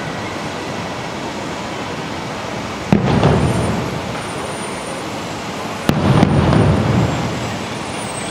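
Distant aerial fireworks: two sharp booms about three seconds apart, each followed by a rumbling echo that dies away over about a second, over a steady background rush.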